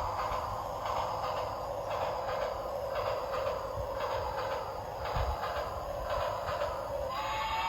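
Battery-powered toy train running along its track: a steady motor whir with the clatter of small wheels. A short tune starts near the end.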